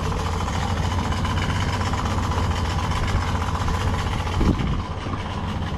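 Boat outboard motor running steadily at an even pitch.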